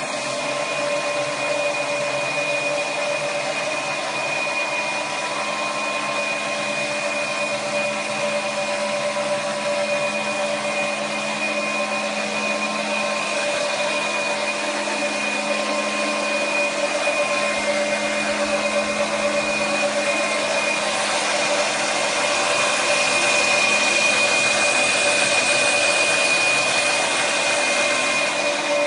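A Delta belt colour sorter for green coffee beans running: a steady whirring machine noise with several constant whining tones, getting a little louder in the last third.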